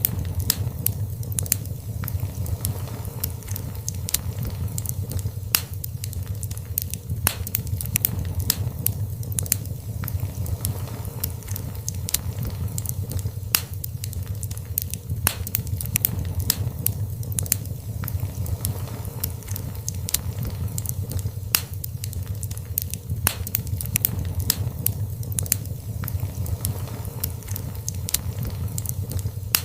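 Fireplace fire crackling: frequent irregular sharp pops and snaps over a steady low rumble of the flames.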